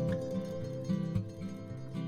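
Background music: acoustic guitar playing over a steady bass line, with a held note.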